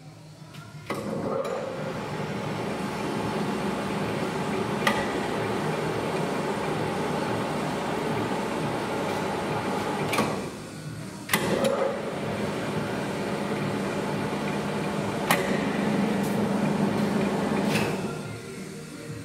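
Voest Alpine DA250 centre lathe running, its geared headstock and spindle giving a steady mechanical whir. It stops with a click about ten seconds in, starts again a second later, and runs down near the end, with a few sharp clicks from the controls in between.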